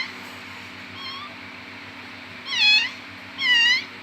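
A cat meowing: a faint short mew about a second in, then two clear meows close together, each dipping and then rising in pitch.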